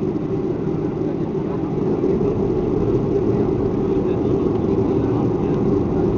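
Cabin noise of a Boeing 737-500 accelerating down the runway on its takeoff roll: its CFM56-3 turbofan engines at takeoff thrust, heard from inside the cabin as a dense, steady low noise that slowly grows louder.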